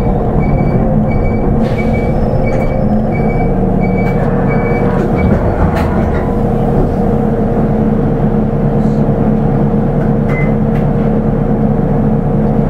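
Nissan Diesel Space Runner RA (PKG-RA274MAN) city bus with a manual gearbox, its diesel engine running steadily while under way, heard from on board. A short repeating beep, about two or three a second, stops about five seconds in, and a few clicks follow.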